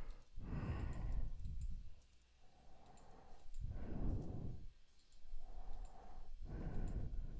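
Breathing close to the microphone: three slow breaths about three seconds apart, with a few faint mouse clicks between them.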